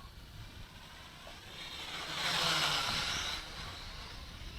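Small quadcopter's motors and propellers whining as it flies past, swelling for about a second and a half in the middle and then fading.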